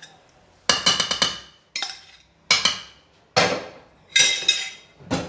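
Repeated sharp knocks and clinks of a kitchen utensil against dishware, in irregular clusters of one to four strikes, each with a short metallic ring: loud enough that the cook apologises for the noise.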